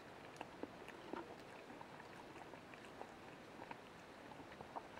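Very quiet room with a few faint scattered clicks, the small mouth and chopstick sounds of someone eating.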